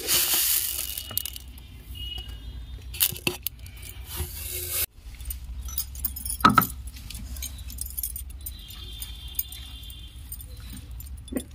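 Light jingling and clinking of small hard objects, with a few sharp knocks, the loudest about six and a half seconds in.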